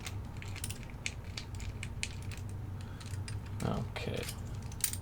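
Abus Plus 88/40 disc-detainer padlock being locked back up: a run of small, irregular metallic clicks and ticks from its mechanism.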